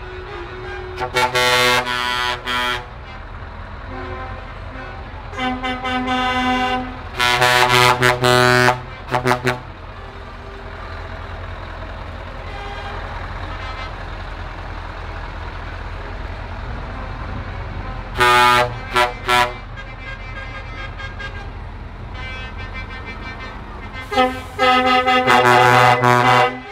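Truck air horns blowing in repeated loud blasts, including a quick run of three short toots and a long blast near the end. Underneath is the steady low rumble of big diesel trucks rolling slowly past.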